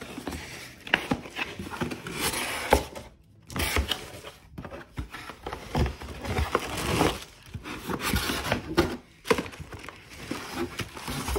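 A cardboard shipping box being opened and unpacked by hand: irregular rustling, crinkling and tearing of the box and packaging, with scattered knocks and clicks.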